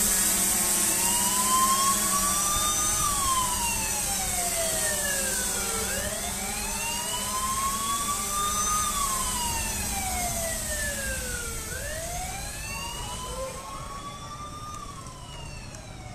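A siren wailing in slow, even cycles, rising over about three seconds and falling over about three seconds, nearly three times, growing fainter toward the end. A steady high hiss runs underneath and fades away near the end.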